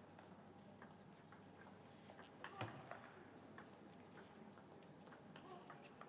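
Table tennis ball clicking irregularly off paddles and table during a rally, with a sharper knock about two and a half seconds in.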